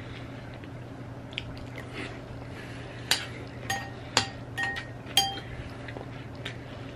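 A metal spoon clinks against a cereal bowl several times between about three and five and a half seconds in, some strikes with a brief ring, as milk-soaked cereal is scooped up. Soft chewing can be heard between the clinks.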